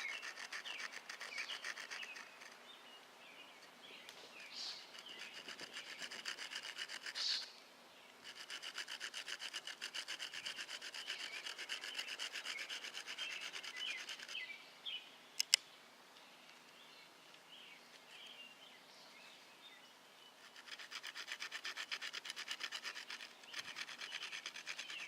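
Horseweed hand-drill spindle being spun back and forth between the palms in a sycamore hearthboard: a dry, rapid rubbing rasp of wood on wood, in several spells of a few seconds with pauses between them. Two sharp clicks come in the long pause about halfway through, and birds chirp throughout.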